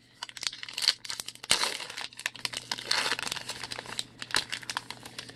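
A 2020 Topps Gypsy Queen trading card pack wrapper being torn open and crinkled by hand: a dense run of quick crackles.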